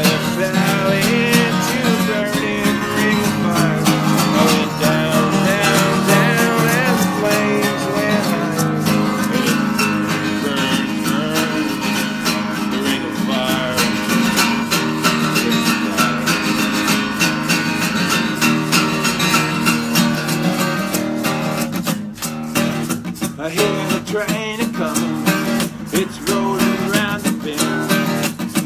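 Acoustic guitar strummed in a steady rhythm, played as an instrumental passage without singing.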